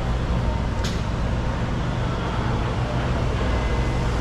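Street traffic: a steady low rumble of car engines in the road, with a brief sharp click about a second in.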